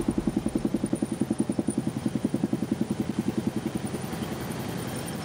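Helicopter rotor beating in a fast, even rhythm of about ten pulses a second, fading away after about four seconds into a faint steady rumble.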